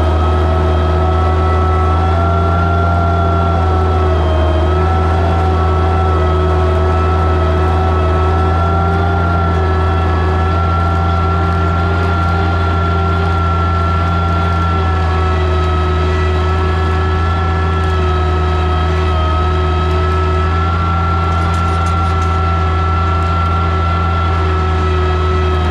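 Oliver 77 tractor's six-cylinder engine running steadily under load while pulling a plow, a constant low drone with a steady higher whine over it.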